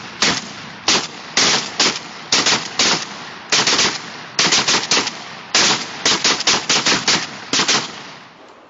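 M-1014 12-gauge semi-automatic combat shotguns firing rapid shots, about two dozen in quick, uneven clusters as if from several shooters at once. The firing stops shortly before the end.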